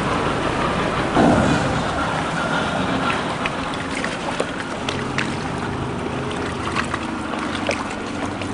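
A small excursion boat's engine running low and steady, under a wash of wind and water noise on the microphone, with a brief louder rush about a second in.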